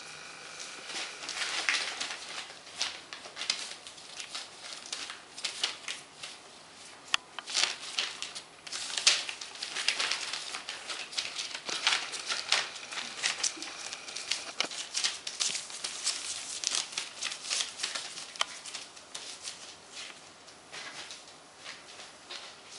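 Groenendael puppies scrambling and play-wrestling on a floor of spread newspaper: irregular crinkling and rustling of paper with scrabbling paws and small clicks.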